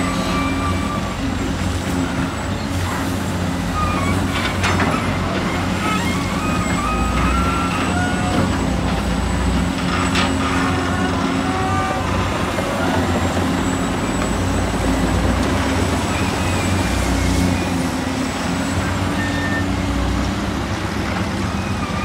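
Heavy construction machinery, excavator and dump truck engines, running steadily under load, with a few metallic knocks and short squeaks from the working machines.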